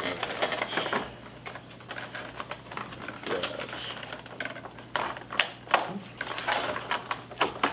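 Clear plastic toy packaging crackling and clicking as hands work an action figure free of it, in quick irregular clicks.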